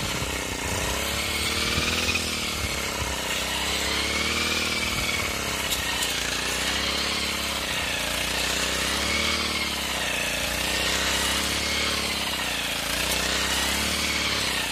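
Backpack brush cutter (crop-cutting machine) engine running at working speed, its pitch rising and falling about every two seconds as the blade is swung through the crop under load.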